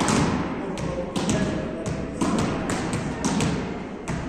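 Volleyballs being struck with hands and forearms during passing drills: irregular sharp slaps and thuds, a few a second, echoing in a large gym hall.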